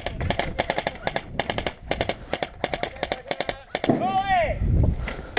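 Airsoft guns firing in rapid bursts of sharp clicks for about four seconds, then a shout.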